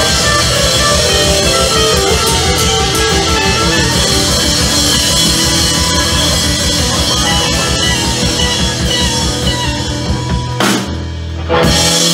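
Live rock band playing a song with electric guitars, bass and drum kit. Near the end the drums and higher parts drop out, leaving a held low note for about a second, and the band then comes back in.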